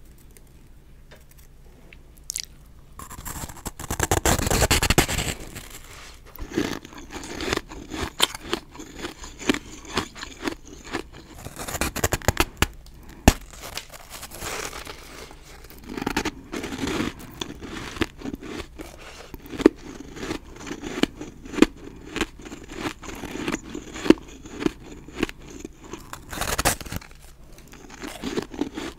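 Close-up crunchy bites into dry, powdery snowballs of refrozen ice, with chewing between the bites. The crunching starts about three seconds in, with sharp crunches every second or so.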